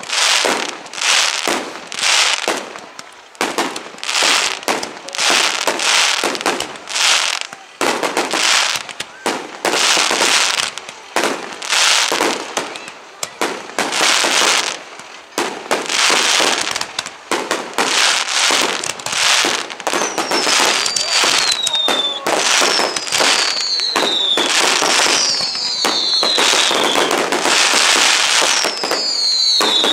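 Fireworks display: aerial shells bursting in quick succession. From about two-thirds through, several whistles sliding down in pitch, one after another, sound over the bursts.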